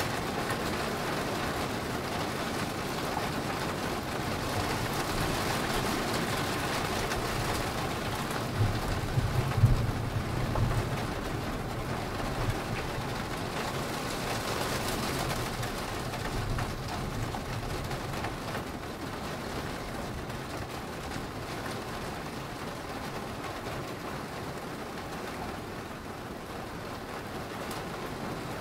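Steady rain falling, with a low rumble of thunder about nine seconds in that lasts a couple of seconds. The rain eases slightly later on.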